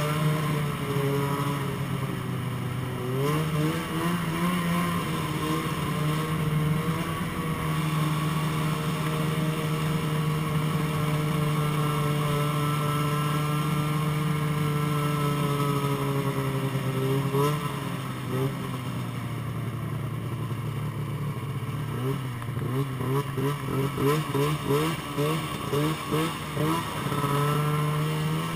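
Snowmobile engine running at a steady cruising speed, its pitch dipping and picking back up a few times. Near the end the engine note rises and falls in quick, repeated pulses for several seconds before settling again.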